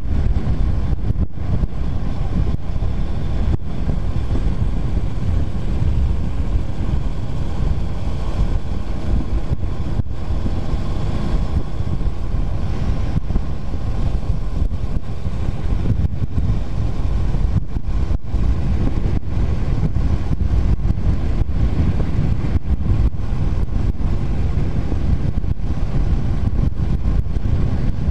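Steady wind buffeting on the camera microphone of a moving Honda CBR250R motorcycle, with the bike's engine running at a steady cruise underneath.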